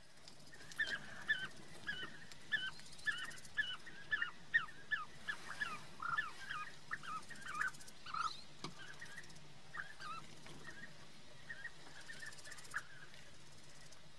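Bee-eater calling over and over in short, liquid chirps, about two a second. The calls are louder for the first half and then grow fainter and more spaced out.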